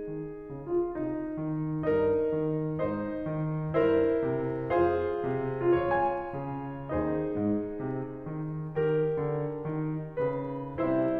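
Background piano music, one note or chord after another.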